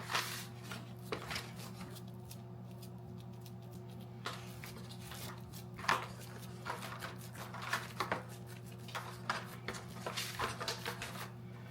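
Faint kitchen handling noise: scattered soft clicks and rustles over a steady low hum, with a few sharper ticks later on.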